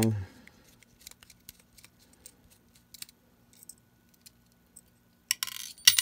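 Faint scattered metal clicks as a magnetic screwdriver backs small screws out of a Zippo double torch butane insert; a little after five seconds, small metal parts drop and clatter into a glass ashtray.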